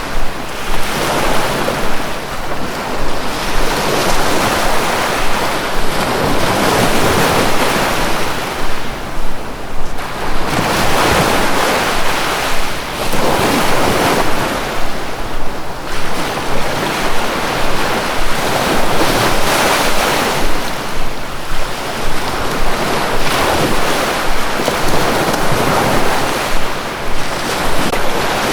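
Sea waves washing in and out, a continuous rush that swells and fades every few seconds.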